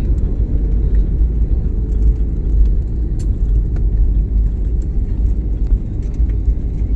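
Steady low rumble of an airliner in flight, heard inside the cabin: engine and airflow noise, with a few faint clicks.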